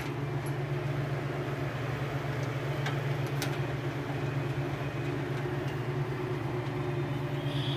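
Steady low machine hum with a couple of faint light clicks.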